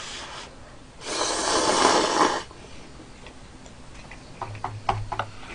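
Instant noodles slurped in one long noisy suck lasting about a second and a half, followed by chewing with small wet mouth clicks.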